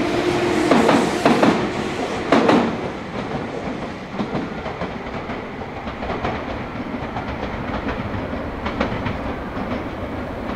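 Meitetsu electric train running past on the station tracks, its wheels clacking over rail joints with a steady hum for the first couple of seconds, then fading to a quieter rumble as it draws away.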